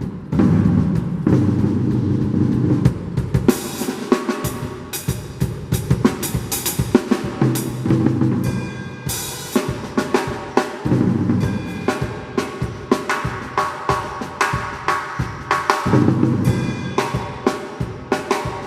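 Drum kit played in sebene style: fast, dense snare strokes with bass drum and cymbal crashes in a continuous groove-and-fill pattern.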